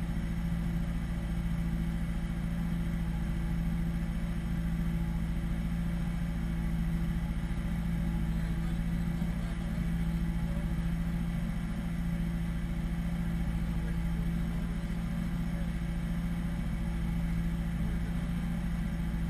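Rally Miata's engine idling steadily at constant revs.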